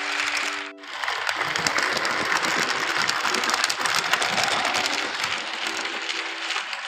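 HO-scale model freight train running past close by, its wheels clattering and clicking along the track and over the points. It starts about a second in and fades near the end, under plucked-string background music.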